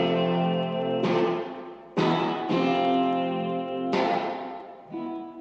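Acoustic guitar strummed live: single chords struck about once a second, each ringing out and fading before the next.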